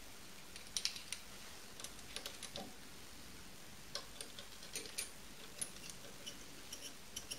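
Light, irregular clicks and taps of a digital caliper being handled: the slide moving and the jaws closing on a small metal pin.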